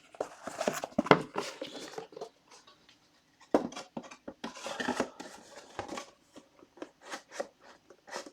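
Trading cards, plastic card holders and cardboard boxes being handled on a table: irregular small clicks, taps and rustles, pausing for about a second between two and three and a half seconds in.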